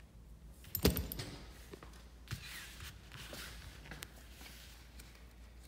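Plastic-wrapped sticker and graphics sheets being handled on a table: a sharp knock about a second in, then soft rustling of plastic with a few small clicks.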